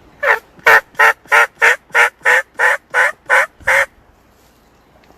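Turkey yelping: a run of about eleven loud, evenly spaced notes, roughly three a second, that stops after about four seconds.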